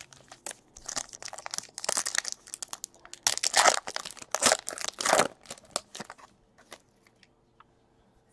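Foil wrapper of a Bowman Chrome baseball card pack being opened and crinkled in the hands: a run of crackling rustles lasting about four seconds, followed by a few light clicks.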